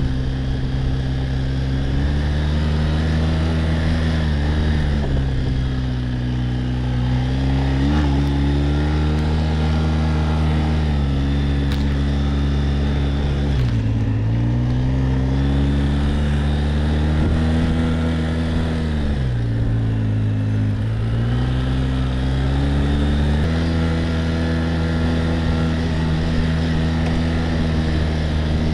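Quad bike (ATV) engine running while riding, its pitch rising and falling as the throttle changes. It drops low about halfway through and again about two-thirds in, then picks back up.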